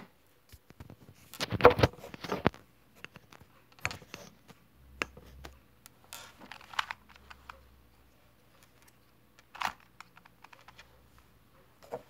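Handling noise from hands moving a plastic 2x2 puzzle cube and the camera: a cluster of knocks and rubbing about two seconds in, then scattered light clicks and taps, with one sharp tap near ten seconds.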